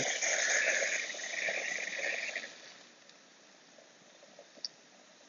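Liquid nitrogen hissing and boiling off as it is poured into a beaker of 99% isopropyl alcohol, which is freezing solid on contact; the hiss dies away after about two and a half seconds, leaving only a faint tick later on.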